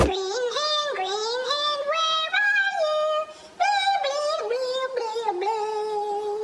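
A high-pitched voice singing a wordless tune, holding notes and sliding between them, with a short break about three seconds in.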